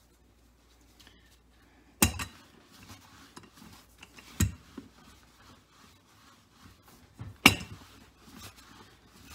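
Cloth-covered wooden rolling pin rolling out whole wheat tortilla dough on a floured pastry cloth: soft rubbing and rolling, broken by a few sharp knocks, the loudest about two seconds in and near the end.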